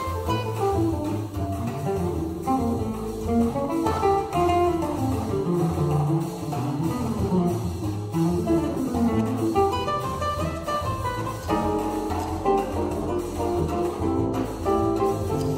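A choro played live by a trio of acoustic guitar, cello and drum kit, with the plucked guitar lines to the fore.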